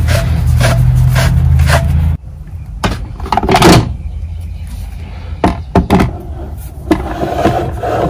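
A steady low machine hum that cuts off suddenly about two seconds in, then scattered knocks and scrapes of a plastic bird bath's parts being handled, with one loud scrape about three and a half seconds in.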